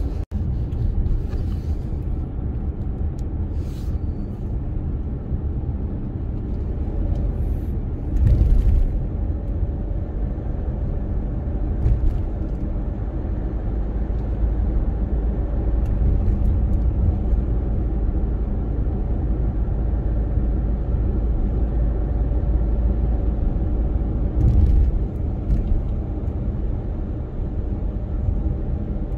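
Steady low rumble of a car driving on city streets, the engine and tyres running over the road, with two brief louder thumps: one about eight seconds in and another later.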